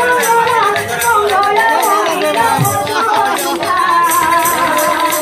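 Women's group singing a devotional kirtan, several voices at once, over steadily jingling hand cymbals. A low drum stroke falls in pitch about halfway through.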